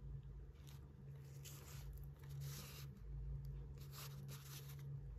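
Paper pages and lace trim of a handmade mini journal rustling faintly in short bursts as they are handled and turned, over a steady low hum.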